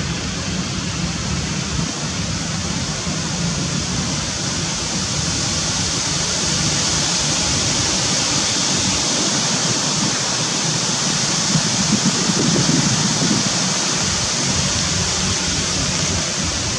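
Steady rushing noise, a little louder about twelve seconds in.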